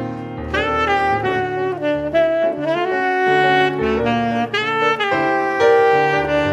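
Background jazz music led by a saxophone playing a melody with sliding notes.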